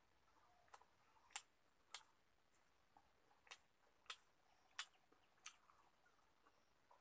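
Quiet eating sounds: about seven faint, sharp clicks at uneven intervals, mouth and lip smacks from someone chewing a mouthful of rice and fish.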